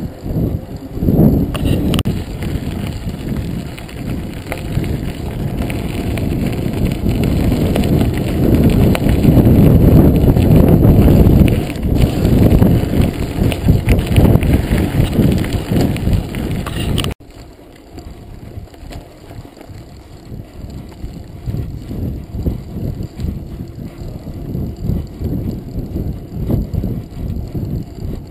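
A full-suspension mountain bike ridden at speed, heard from a GoPro mounted on it: tyres rumbling and the bike rattling over the path, with wind on the microphone. The rumble is loudest in the first half, then drops abruptly a little over halfway through to a quieter rattle and crunch over dirt and gravel.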